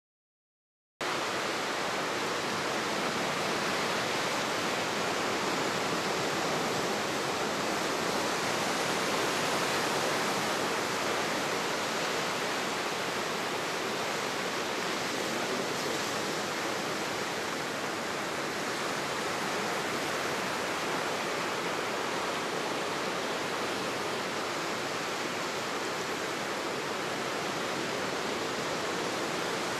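Ocean surf washing onto the beach: a steady, even hiss of breaking water with little rise and fall, starting about a second in.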